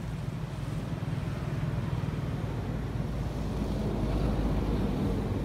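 Low, steady rumble of a running vehicle engine, swelling slightly about four seconds in.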